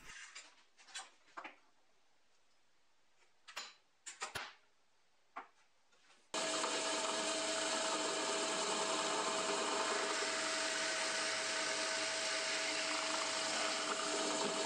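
Drill press starting suddenly about six seconds in and running steadily with a constant whine as its bit bores into birch plywood. Before it, a few faint taps.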